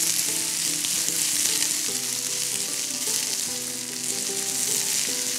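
Blanched Swiss chard stems and leaves sizzling in hot oil in a nonstick frying pan, stirred and tossed with a slotted spatula for a quick sauté.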